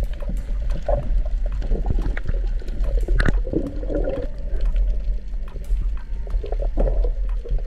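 Muffled underwater sound picked up by a submerged camera: a steady low water rumble with irregular bubbling and scattered clicks.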